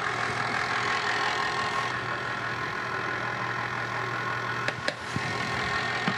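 Electric stand mixer running steadily, its motor humming evenly as it mixes bread dough, with a couple of light clicks about five seconds in.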